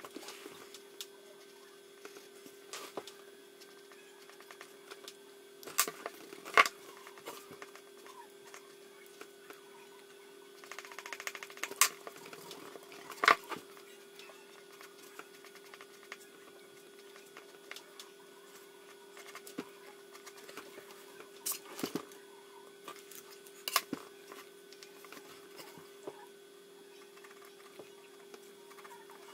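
Graphite pencil scratching on paper in short, scattered strokes, with a few sharp taps and clicks and a steady hum underneath.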